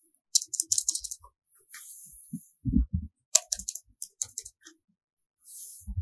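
Asus ROG Strix G15 laptop keyboard keys being pressed in quick bursts of short clicks, twice. A dull low thump falls near the middle, between the two bursts.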